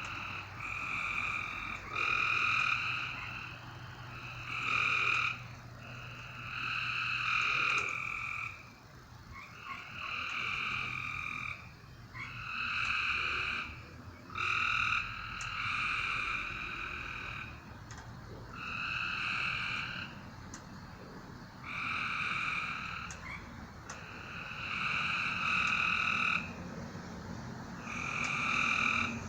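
Frogs calling: repeated calls about a second long, one every one to two seconds, some overlapping.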